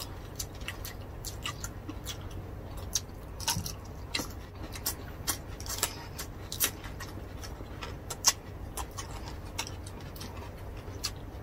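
Close-miked chewing and eating sounds: irregular wet clicks, smacks and small crunches of two people chewing roast pork and rice with their mouths, a few snaps louder than the rest.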